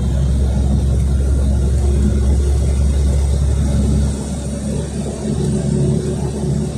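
Inside a moving LiAZ 5292.67 city bus: its Weichai compressed-natural-gas engine running under way with a deep rumble, which drops off suddenly about four seconds in.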